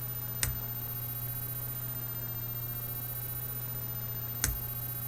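Two short sharp clicks about four seconds apart: a tension wrench and pick being worked into a shrouded Brinks padlock. They sit over a steady low hum and hiss.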